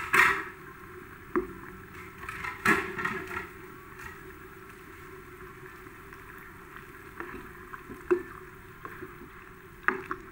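A pot of sayur asam (tamarind vegetable soup) stirred with a ladle: the broth sloshes around the vegetables over a steady hiss, and the ladle knocks sharply against the metal pot several times.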